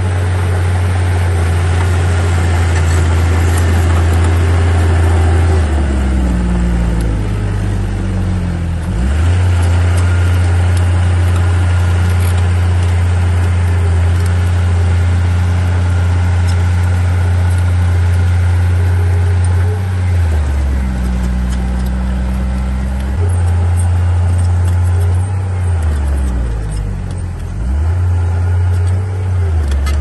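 Komatsu D37P bulldozer's diesel engine running hard, a steady low drone whose pitch sags and then climbs back three times: about six seconds in, around twenty seconds, and near the end.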